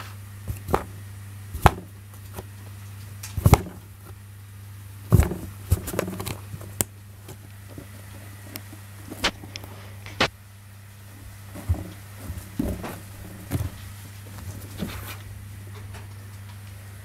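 Cats pawing and batting at a cardboard box through its hand-hole: irregular knocks, taps and short scratches on the cardboard, the loudest in the first five seconds, over a steady low hum.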